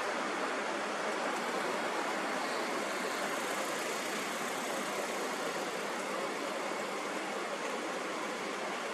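Steady, even rushing noise with no pauses, swells or rhythm, a continuous noise bed for sleep.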